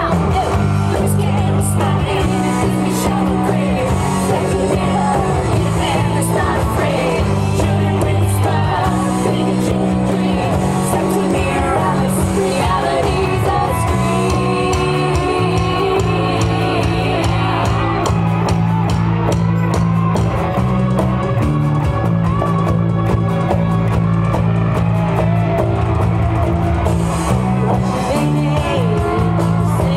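A rock band playing a song, with women singing over electric and acoustic guitars, bass and drums.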